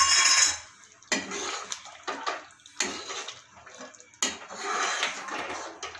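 Steel ladle stirring a thick, creamy gravy in a kadhai. A loud splash comes first, then about five strokes in six seconds, each opening with a clink of the ladle against the pan and trailing into wet sloshing.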